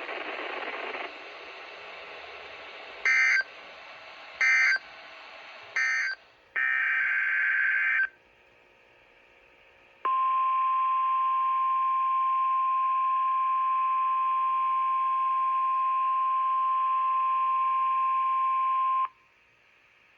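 NOAA Weather Radio emergency alert signals: three short screeching SAME digital data bursts about 1.4 seconds apart, then a longer burst. A couple of seconds later comes the steady 1050 Hz warning alarm tone, which holds for about nine seconds and cuts off abruptly.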